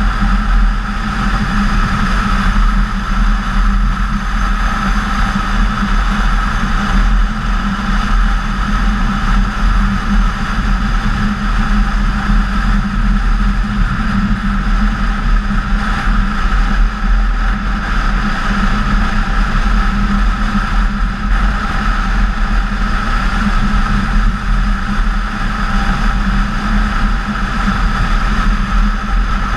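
BMW K1600GTL motorcycle's inline-six engine running at a steady cruise, with wind and road noise. The hum holds even throughout, with no revving or shifting.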